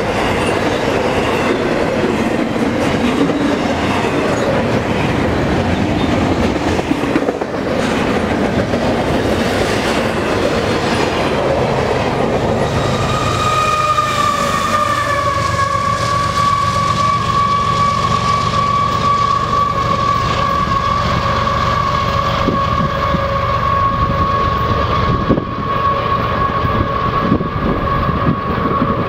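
Long intermodal freight train passing: a steady rumble and clatter of wheels over the rails from the container and spine cars. About halfway through a diesel locomotive goes by close, and from then on a steady high whine, dropping slightly in pitch as it passes, carries on over the rumble.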